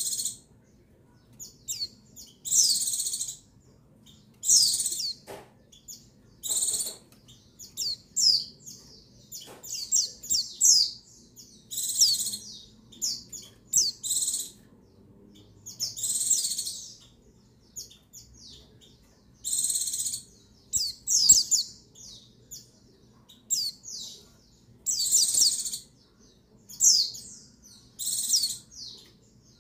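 Female white-eye (pleci) giving short, high-pitched chirping calls every second or two, some in quick runs of several notes. It is a female's call, used to rouse male white-eyes into song.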